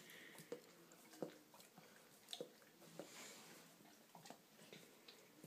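Faint, irregular wet smacks and clicks of a Rottweiler licking and lip-smacking as it eats whipped cream.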